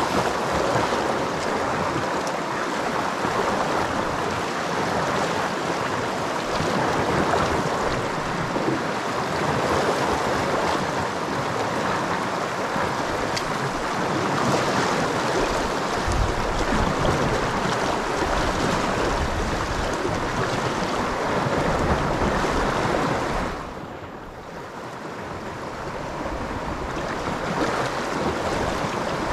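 Fast, swollen river rushing and churning through rapids: a steady, loud wash of water. It drops briefly about three-quarters of the way through, then swells back.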